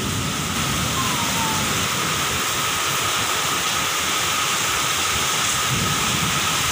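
Heavy rain pouring down in a windstorm: a steady, even rush.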